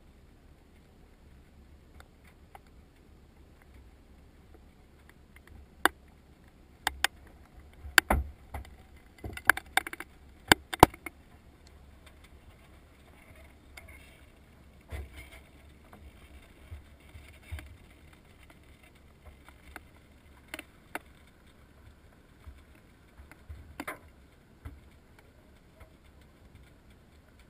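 Compartment fire burning in a burn cell: a run of loud, sharp cracks and pops in the first half, then scattered ones, over a low steady rumble.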